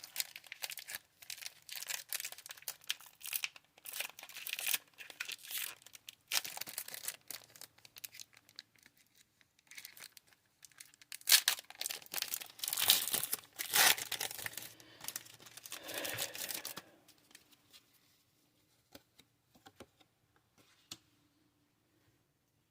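Foil Pokémon booster pack wrappers being crinkled and torn open by hand, in repeated bursts of rustling and tearing, loudest in the second half, that stop about seventeen seconds in, leaving only a few faint clicks.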